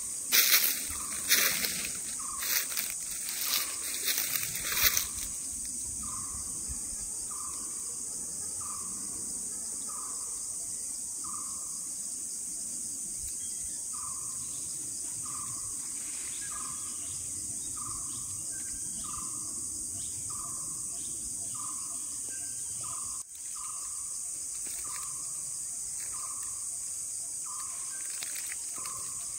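Dry leaf litter crunching underfoot in irregular steps for about the first five seconds. Over a steady high-pitched insect drone, a bird then repeats a short note about once a second.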